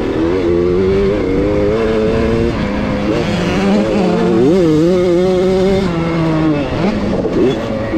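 Onboard sound of a 65cc two-stroke motocross bike's engine at race pace. The revs are held for a second or two at a time, dip and climb again, and swing up and down more quickly near the end.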